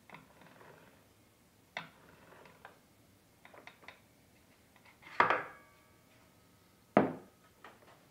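Light metallic clicks and knocks from a Triton TA235CSL circular saw being checked by hand, its safety guard worked and its blade turned. The loudest knock, about five seconds in, rings briefly, and another sharp one follows about two seconds later.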